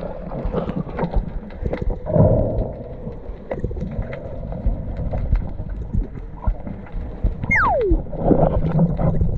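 Underwater sound picked up by an action camera below the surface: a muffled water rumble with many sharp little clicks, and one high squeal sliding quickly down in pitch about three quarters of the way through.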